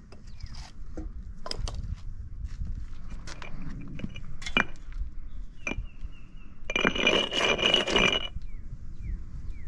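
Concrete paver pieces clinking and knocking as they are handled and set down on the pool deck pavers, a few separate knocks, then a loud scrape lasting about a second and a half near the end.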